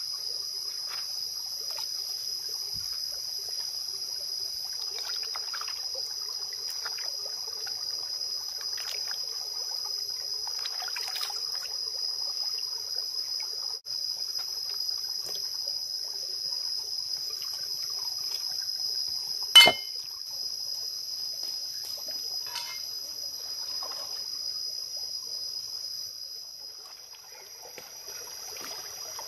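Steady high-pitched drone of jungle insects, with soft wet squelches and drips as hands squeeze and knead wet mushrooms. One sharp click about two-thirds of the way through.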